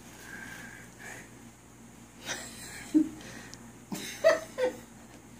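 Tissue paper rustling as it is pulled from a gift bag, then a few short vocal sounds, like sniffs or small laughs, in the last couple of seconds while she rubs her nose.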